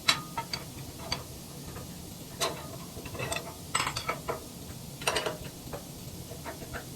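Metal hand tools working on the steel parts of a wood chipper: irregular metallic clicks, clinks and knocks, some ratchet-like, over a low steady hum.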